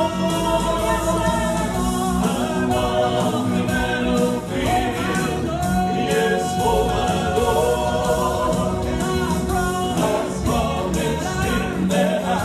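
Male gospel quartet singing in harmony through microphones, with several voices holding long notes together.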